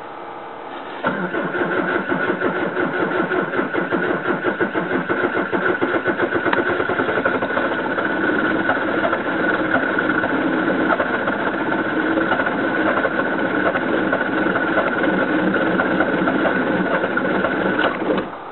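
Peugeot 406 1.9 turbodiesel being cranked by its starter motor in severe cold (about −28 °C): a steady, rhythmic cranking that starts about a second in and runs for some seventeen seconds without the engine catching, then stops near the end.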